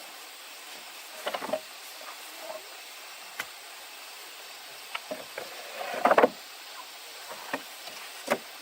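Irregular knocks and rustles of objects being handled, loudest in a short cluster about six seconds in, with a few sharp single clicks, over a steady hiss of background noise.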